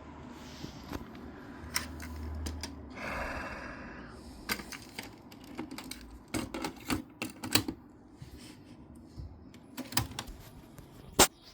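Mechanical clicks and clunks from a Technics RS-B28R cassette deck's transport buttons and mechanism being worked, with a brief rushing noise about three seconds in and one sharp, loud click near the end.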